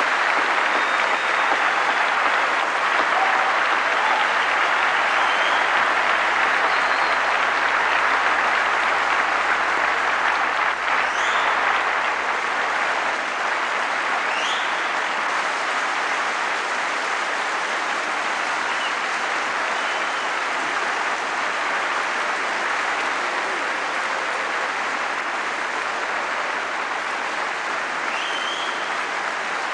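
Large audience applauding steadily, with a few short cheers rising over the clapping; the applause eases slightly about halfway through.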